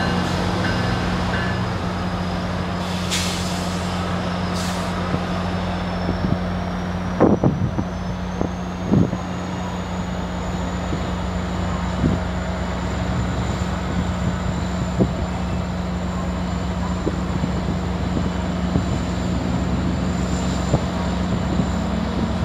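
Diesel locomotive of a GO commuter train running steadily, a low even hum. A faint high whine rises about six seconds in and then holds, and there are a few sharp knocks around seven to nine seconds in.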